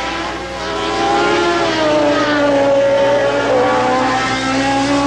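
A 1970s Formula 1 race car engine running at high revs as the car goes past the trackside microphone, its pitch sliding slowly down and then climbing again near the end.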